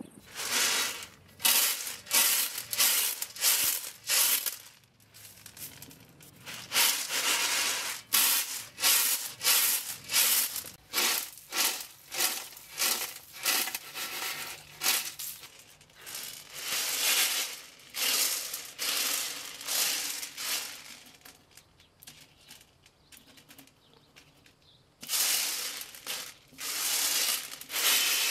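Grain shaken and tossed on a wide aluminium tray in winnowing, dry kernels swishing and rattling across the metal in rhythmic strokes, about two a second at first. The strokes fade to a quieter stretch near the end, then start again.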